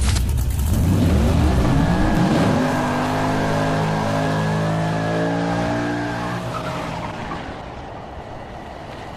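Motorcycle engine revving: a deep rumble rising in pitch over the first two seconds or so, then holding a steady note that fades away.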